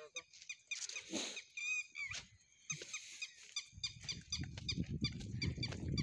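A herd of Beetal goats moving along a dirt track, with many short, high, squeaky chirps repeating throughout. From about four seconds in, a loud low rumble on the microphone takes over.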